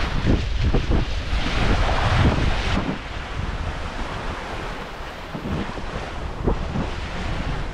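Wind buffeting the microphone over water rushing and splashing along the hull of a sailboat moving briskly under sail. It is louder for the first few seconds and eases a little after about three seconds.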